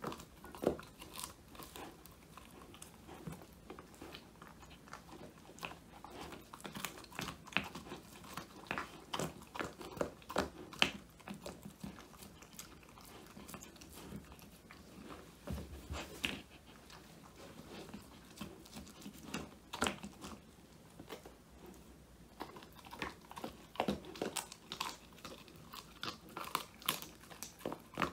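Old English Sheepdog puppy chewing and crunching a handmade whole-quail treat: a run of irregular crunches and bites, with a couple of short lulls before the crunching picks up again.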